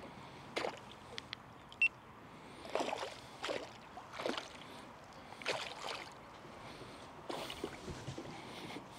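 Water splashing and sloshing in soft, irregular bursts, about eight in all, with a brief high chirp near two seconds in.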